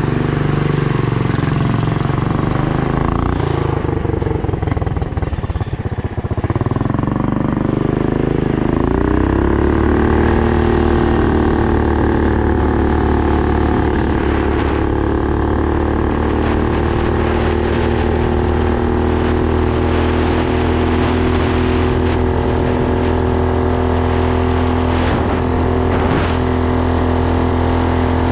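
A 420 cc minibike's single-cylinder engine revs up unevenly as the bike pulls away and picks up speed. After about nine seconds it settles at a steady high speed and stays there while the bike cruises.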